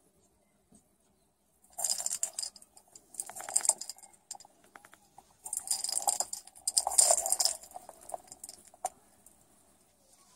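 Dry cat treats rattling and clinking inside a hollow plastic treat ball as a cat paws and rolls it over a tile floor. The rattle comes in several bursts, then dies down to a few faint clicks near the end.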